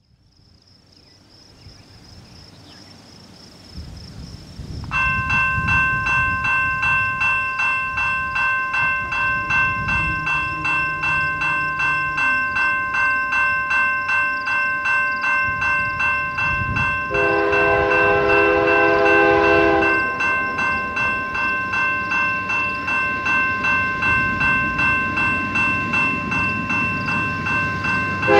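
A railroad crossing signal's bell starts about five seconds in, a rapid, steady dinging that runs on under everything. Partway through, an approaching freight locomotive's air horn sounds one blast of about three seconds, a chord of several tones, over a low rumble of the train drawing near.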